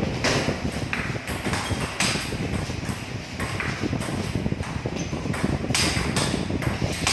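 Table tennis rally: the ball clicking sharply off the paddles and bouncing on the table, about one to two hits a second, in an uneven rhythm.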